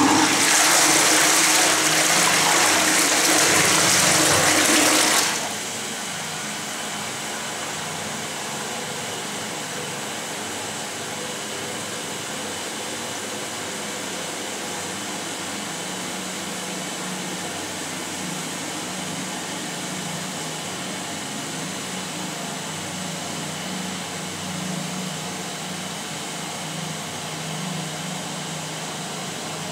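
Toilet flushing: a loud rush of water for about five seconds that stops suddenly, followed by a steady, quieter hiss of water as the tank refills.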